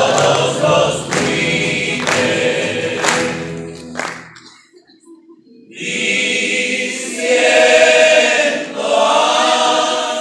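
A rondalla of male voices singing in close harmony to strummed guitars. About four seconds in the music stops for a near-silent pause of a second or so, then the voices come back in with sustained chords.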